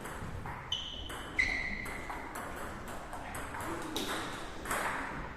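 Table tennis ball knocking off bats and table in a rally, with further ball knocks behind it. The two sharpest hits, a little under a second and about a second and a half in, each ring briefly.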